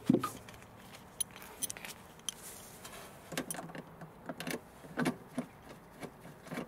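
A hand working at the yaw rate sensor's mounting in a cramped carpeted compartment: scattered light clicks and knocks with fabric rustling, busier in the second half.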